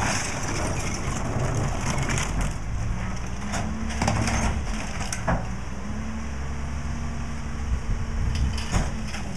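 Rear-loader garbage truck working at the curb: its engine drone steps up in pitch as the hydraulics run, while a cart tipper tips a trash cart into the hopper. Several sharp bangs and crunches of trash and cart come over the drone.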